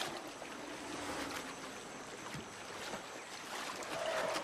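Asian elephants bathing and swimming in a river: steady sloshing and splashing of water.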